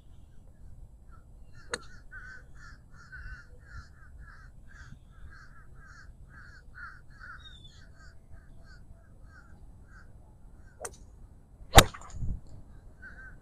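A golf iron striking the ball right beside the microphone about twelve seconds in, a sharp crack that is the loudest sound, with a softer knock just after. For most of the time a bird calls in a fast, even run of harsh caw-like notes over a low rumble of road traffic.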